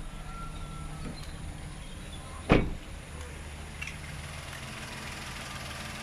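Suzuki S-Presso's 1.0-litre three-cylinder engine idling steadily, with a car door shut once with a loud thump about two and a half seconds in.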